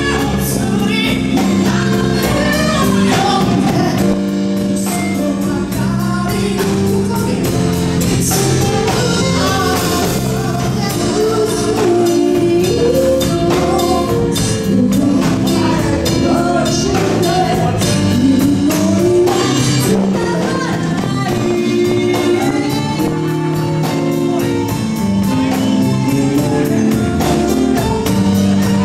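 Live band playing a song: a woman and a man sing into handheld microphones, backed by a drum kit, bass guitar and keyboard.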